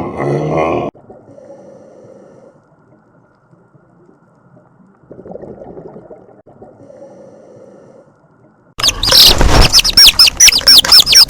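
A low pitched grunt that cuts off about a second in, then faint low sounds, then near the end a bird calling loudly in a rapid series of short falling chirps, about five a second.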